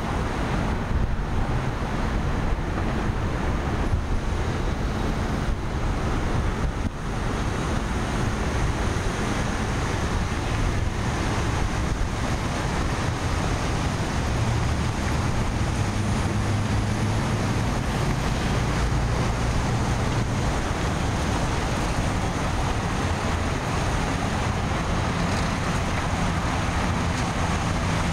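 Steady urban traffic noise with wind on the microphone, and a low steady hum that grows stronger about halfway through.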